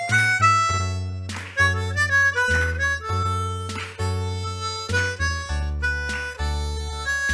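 Synthesized electronic music live-coded in FoxDot and SuperCollider: a sustained synth bass line under plucked synth chords changing note every second or so, with sharp drum hits scattered through it.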